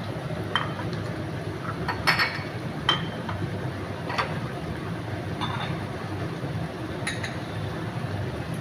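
A metal utensil clinking against a cooking pot, about six separate knocks with a brief metallic ring, the loudest about two seconds in, over a steady low hum.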